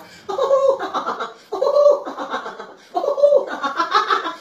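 A person laughing in three long, high-pitched bursts with short breaks for breath between them.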